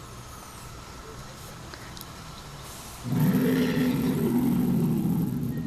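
Animatronic dinosaur's recorded roar played through its speaker. It starts suddenly about three seconds in, deep and loud, holds for about two and a half seconds, then begins to fade near the end.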